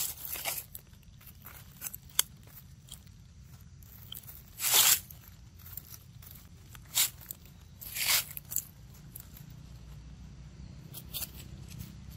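Dry fallen leaves crunching underfoot in scattered short bursts, about five in all, the loudest about five seconds in, over a low steady rumble.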